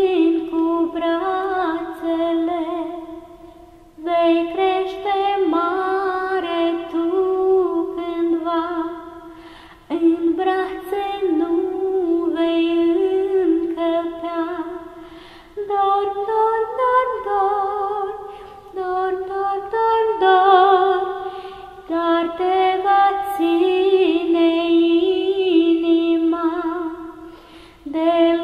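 A woman singing a lullaby unaccompanied, in slow phrases of about six seconds each with short breaths between them.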